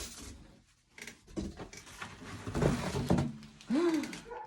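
Drum-set packaging being handled: irregular knocks, thuds and rustling of box and wrapping. Near the end there is a brief pitched sound that rises and falls.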